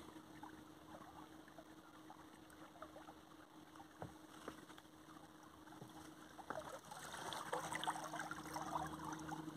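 Water lapping and splashing against an inflatable dinghy moving under a Minn Kota electric trolling motor, with a faint steady hum. The water sounds grow louder about seven seconds in.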